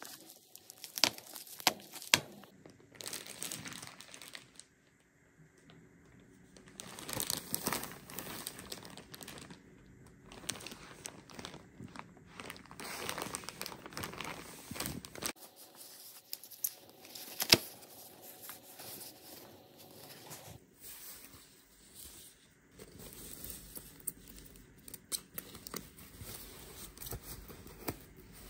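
Bubble wrap, plastic wrapping and tissue paper being torn open and crinkled by hand, making irregular rustling with sharp crackles. The loudest snap comes a little past the middle.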